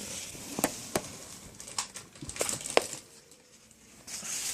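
Handling noise as a Sony ICF-C1 clock radio and its power cord are plugged in: five sharp clicks and knocks of plastic, between about half a second and three seconds in, with light rustling of the cord between them and another brief rustle near the end.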